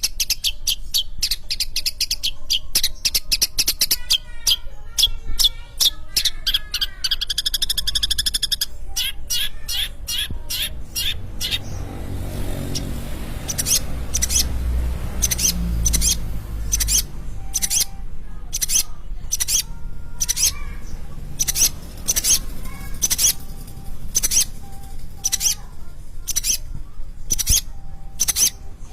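Long-tailed shrike (cendet) singing: a fast run of sharp, high chirps and warbling phrases, then short sharp chirps repeated about twice a second. A low rumble sits under the song for a few seconds in the middle.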